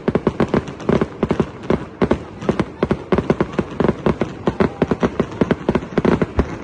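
New Year fireworks going off: a dense, irregular barrage of bangs and cracks, several a second, overlapping one another.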